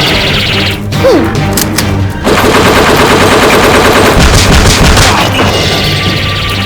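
Rapid machine-gun fire sound effects over background music, with a fast unbroken burst through the middle.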